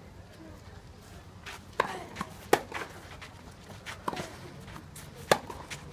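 Tennis rally in doubles on a clay court: four sharp ball strikes about a second and a half apart, the second and fourth loudest, with a few fainter knocks of the ball between them.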